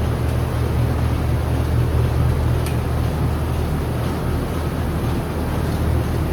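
Steady low hum of running barn machinery, even and unbroken throughout.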